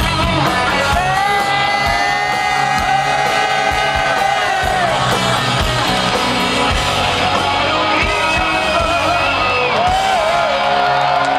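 Live rock band playing loud electric guitar, bass and drums, with the lead singer holding long sung notes, one through the first half and another starting near the end.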